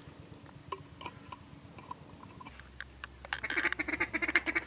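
Fast run of duck quacking chatter, loudest in the last second and a half, after a few faint short quack-like notes in the first half.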